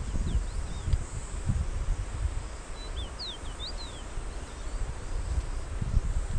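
Outdoor meadow ambience: a low, uneven rumble of wind on the microphone, with a small bird giving a few short, high, gliding chirps near the start and a quick cluster of them about three seconds in.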